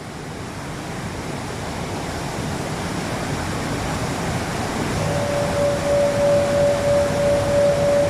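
Waterfall rushing in a steady roar, fading in and growing louder. About five seconds in, a single pure steady tone from a euphone joins it with a slow, gentle waver.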